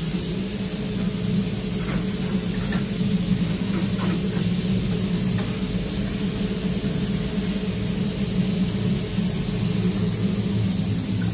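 Steady low hum and hiss of running kitchen machinery, with a few faint clicks.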